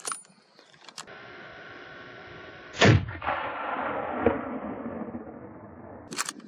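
A loud gunshot about three seconds in, with a long echoing tail that dies away over the next few seconds. Shorter sharp cracks come at the very start and near the end.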